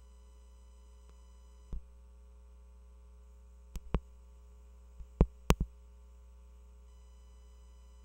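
Steady electrical hum with faint high whine tones, broken by sharp clicks and taps of handling at a desk: one a little under two seconds in, two close together around four seconds, and a quick run of four between five and six seconds.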